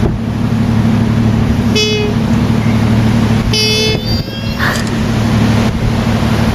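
Steady low motor-vehicle rumble with a horn tooting briefly twice, about a second and a half apart, and a fainter short toot just after.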